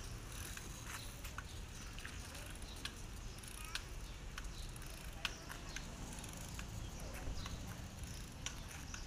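Child's small bicycle with training wheels rolling slowly over rough concrete: a steady low rumble with scattered light clicks and ticks.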